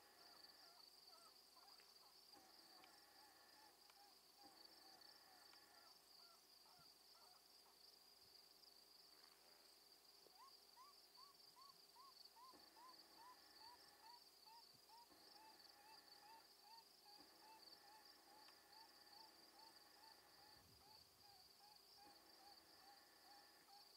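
Faint, steady, high-pitched insect chorus. From about ten seconds in it is joined by a long series of short, evenly repeated calls, about two a second, that slowly drop in pitch.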